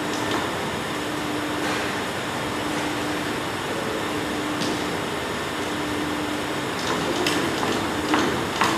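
Hydraulic radial crimping machine running, a steady hum with a low tone that pulses on and off about every second and a half, as its dies close on the steel ring of an air suspension strut. A few sharp clicks come near the end.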